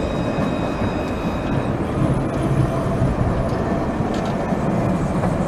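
Low-floor Alstom Citadis tram passing close by: a steady rumble of wheels and running gear on rail, with a thin high whine that fades out about two seconds in.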